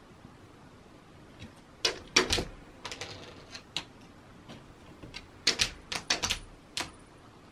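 A Shiba Inu's claws and paws clicking and tapping against a window pane and its wooden sill as it rears up and paws at the glass. The taps come in irregular clusters: a few about two seconds in, scattered ones around three to four seconds, and a rapid run of the loudest between five and seven seconds.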